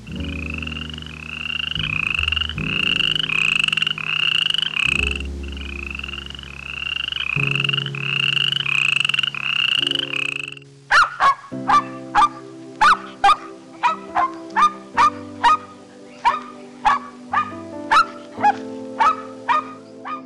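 Repeated animal calls over soft background music: about a dozen short, slightly rising calls a little over one a second, then after a brief break a louder run of sharp clicking calls about two a second.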